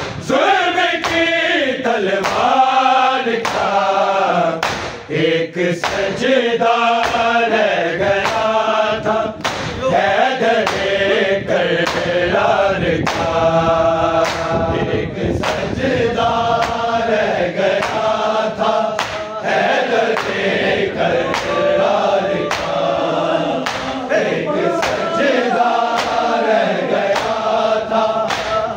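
Men's voices chanting an Urdu noha (mourning lament) together in a sung chorus, with a steady beat of sharp strikes about one to two a second running under the melody.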